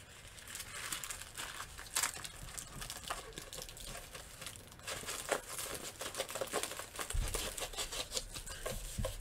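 Diamond-painting canvas with its plastic cover film crinkling and crackling as it is rolled up by hand to make it lie flat. A low rumble joins in near the end as the roll is pressed against the table.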